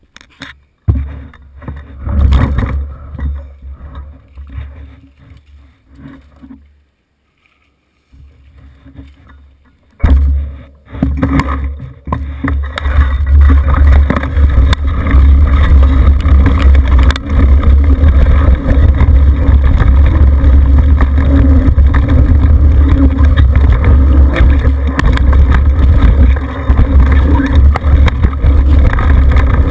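Wind buffeting the microphone and tyre and trail noise as a mountain bike rides fast down a dirt forest trail, a loud, steady rumble. It sets in about a third of the way in, after a mostly quiet stretch of scattered knocks and rattles while the bike moves slowly.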